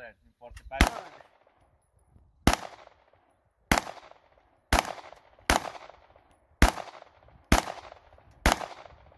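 Eight gunshots fired one after another at an uneven pace, roughly a second apart, each followed by a short echoing tail.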